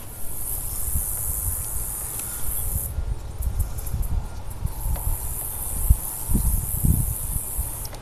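Insects droning, a high steady hiss that drops out for a moment about three seconds in, over a low rumble. A few knocks come near the end as flexible brush rods are worked in a dryer vent.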